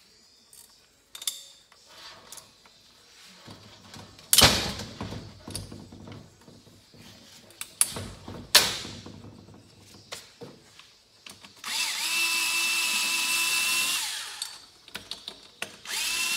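Cordless power driver spinning out 8 mm cylinder bolts: a steady whine that starts with a brief rise, runs for about two seconds near the end, and starts again just before the end. Before it come several sharp knocks of tools and metal parts, the loudest a little over four seconds in.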